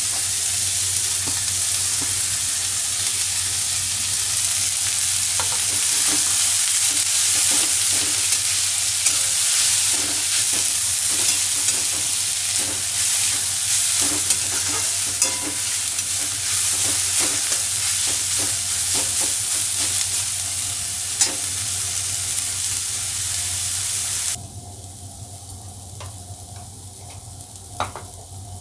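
Shredded vegetables sizzling as they fry in hot oil in a kadai, with a metal spatula scraping and clicking against the pan as they are tossed. Near the end the sizzle drops away suddenly, leaving a few faint clicks.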